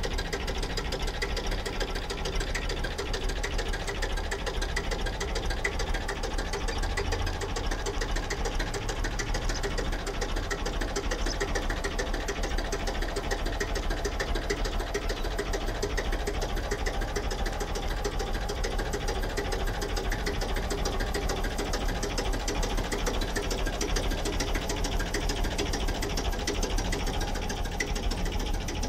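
Restored Massey Ferguson 35 tractor's engine idling steadily, with an even, rapid firing beat.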